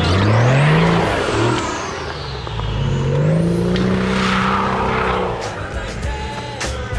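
Four-wheel-drive engine revving up under load as the vehicle pulls out of a stony creek crossing, rising in pitch twice as it accelerates and changes up, then fading as it drives away. Water and stones splash under the tyres in the first couple of seconds.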